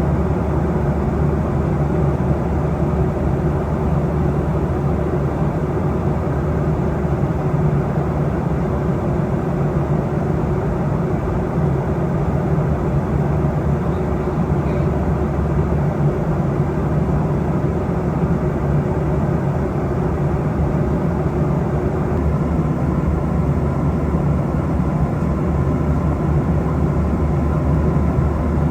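Steady drone inside an airliner cabin in flight: engine and airflow noise, heaviest in the low end, with a faint even hum and no separate events.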